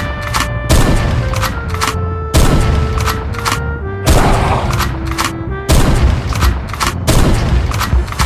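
Music: a melody of held notes stepping up and down over loud, heavy hits that come every second or two.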